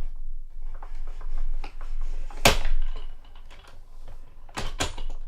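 Spellbinders Platinum 6 hand-cranked die-cutting machine feeding a hot-foil plate sandwich through its rollers: a run of light clicks and knocks, with a sharp knock about two and a half seconds in and two more close together near the end. A low hum runs underneath.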